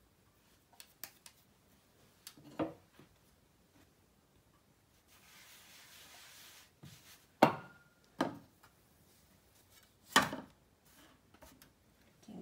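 Roti-making sounds from a wooden rolling pin and dough on a floured board: a few scattered knocks, the two sharpest well into the middle and later, and a soft brushing rub lasting over a second around the middle as flour is spread over the board.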